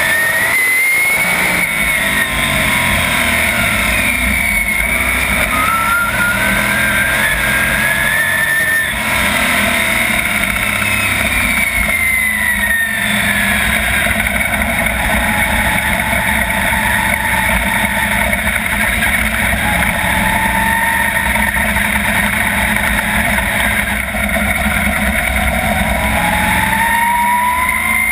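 Onboard sound of a 410 sprint car's V8 racing engine running hard, its pitch rising and falling in long sweeps several times as the throttle is worked around the oval.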